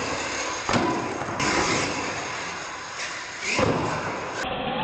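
Radio-controlled solid-axle monster trucks crashing and landing on a concrete floor during ramp jumps: two sharp knocks, about a second in and again near the end, over steady motor and tyre noise.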